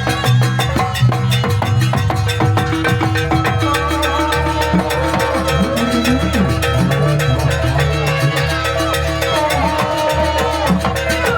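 Loud live Banyuwangi jaranan ensemble music: dense, fast percussion over held pitched tones, with a wavering melody line above.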